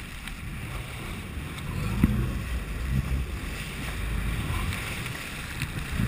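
Sea water splashing and rushing over a camera held at the surface beside a boat, with a low rumble underneath that swells and eases, and one sharp knock about two seconds in.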